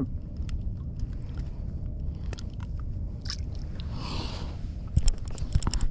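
Scattered clicks and scrapes of a caught catfish being handled at the side of a plastic kayak, with a sharper cluster of clicks near the end, over a steady low rumble.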